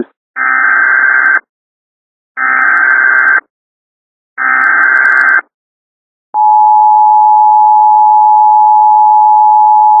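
Emergency Alert System SAME header: three one-second bursts of screechy digital data tones about a second apart. About six seconds in, the steady two-tone EAS attention signal begins and holds.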